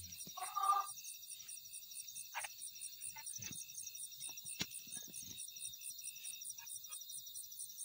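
Crickets chirping steadily in an even, high-pitched pulse, about three chirps a second. A short pitched call sounds about half a second in, and faint clicks and rustles are scattered through.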